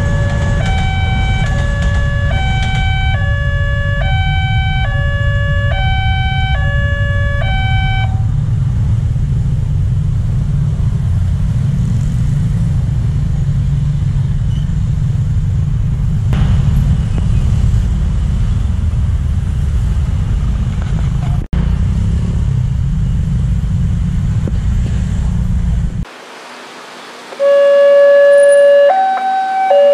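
Railway level-crossing alarm sounding two tones that alternate about once a second, each held about half a second, over a loud steady low rumble of motorcycle traffic; the alarm stops about eight seconds in and the traffic rumble carries on. Near the end the two-tone crossing alarm starts again, louder.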